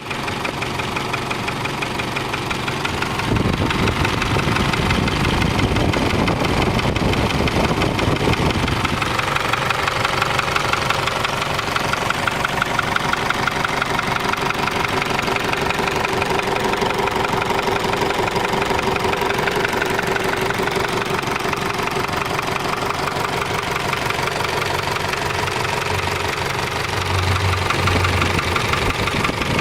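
Isuzu D-Max pickup's engine running steadily, with the noise that the owner treats as a fault. It gets louder a few seconds in, and steady whining tones come in partway through.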